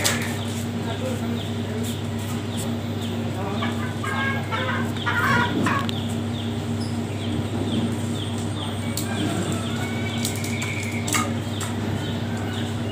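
Caged green junglefowl clucking in short bursts, most of them between about four and six seconds in. Under it run a steady low hum and a faint chirp repeating about twice a second.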